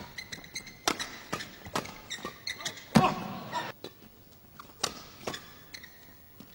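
Badminton rally in an indoor hall: sharp racket strikes on the shuttlecock with short squeaks of court shoes between them. The loudest strike comes about three seconds in, and the hits stop soon after.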